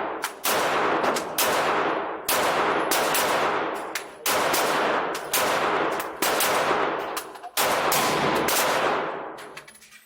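Ruger Mark IV .22 LR pistol being fired in a slow string of about nine shots, roughly one a second, each ringing out with a long echoing decay.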